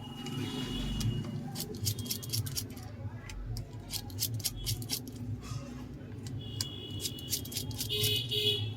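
Irregular small clicks and taps of a precision screwdriver and tiny screws against a phone's frame as the screws are undone, over a steady low background hum.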